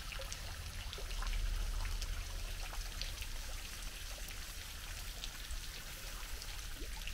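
Water trickling and splashing in a spring-fed ornamental garden pool, an even hiss with faint drips, over a steady low rumble.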